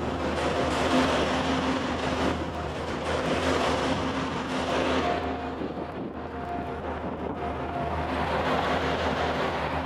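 Skid steer loader engine running steadily, a low hum with a higher tone that comes and goes, its level rising and falling a little as the machine works.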